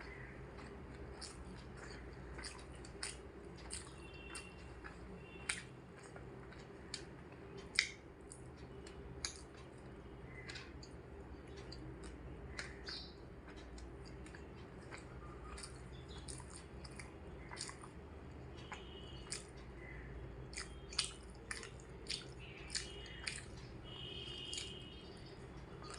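Close-miked eating: irregular wet chewing and mouth clicks from a person working through a meal of rice, fried vegetables and curry. Faint bird chirps come in now and then, most of them near the end.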